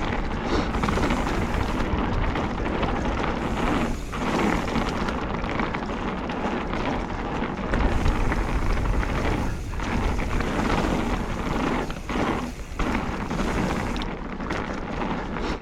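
Mountain-bike knobby tubeless tyres (Magic Mary front, Hans Dampf rear) rolling and crunching over a dirt woodland trail, with a steady low rumble and wind buffeting the helmet or bike-mounted action camera.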